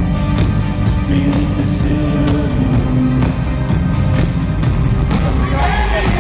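Live band playing loud pop-rock music with a drum beat; a voice comes in near the end.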